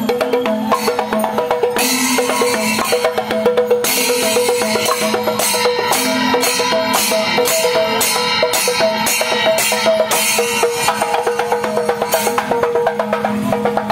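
Kerala temple percussion ensemble playing panchavadyam-style music: ilathalam hand cymbals clash in a fast, dense rhythm over sharp drum strokes, while a wind instrument holds and alternates between a few notes.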